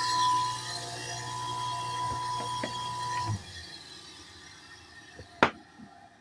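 Kawamoto N3-206SH well pump motor running with a steady hum and a high whine, a noise listed as abnormal motor noise. It shuts off about three seconds in and runs down, followed by a single sharp click near the end.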